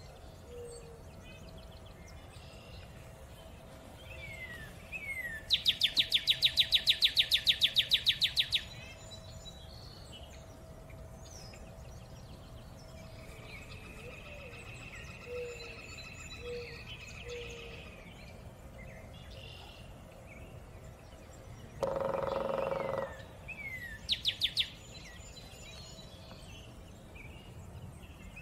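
Wild birds calling around the nest: soft chirps, a loud fast rattling trill lasting about three seconds, a one-second call about three-quarters of the way through, and a shorter rattle soon after.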